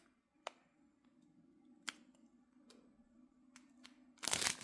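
Small plastic bags of diamond painting drills being handled: a few sharp clicks, then loud plastic crinkling starting near the end.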